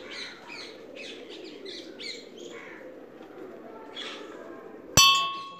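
Birds chirping. About five seconds in, a hanging brass temple bell is struck once and rings on with several clear, steady tones.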